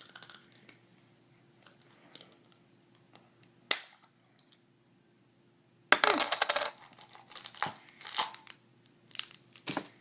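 Hard plastic clicks and rattles of a small toy collectible capsule being twisted and pulled open, with a sharp clatter a little under four seconds in and a dense burst of clicking and rattling from about six seconds.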